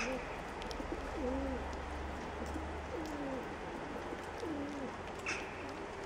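Bird calls: low cooing notes that repeat about every second and a half, over a steady low hum, with a brief sharper chirp about five seconds in.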